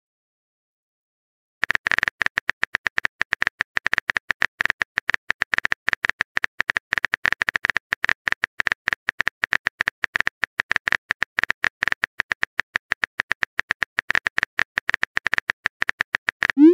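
Phone-keyboard typing sound effect from a texting-story app: rapid, uneven key-tap clicks. It starts about one and a half seconds in and stops just before the end.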